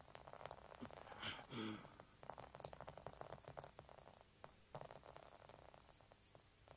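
Near silence, with faint scattered clicks and a brief faint pitched sound about a second and a half in.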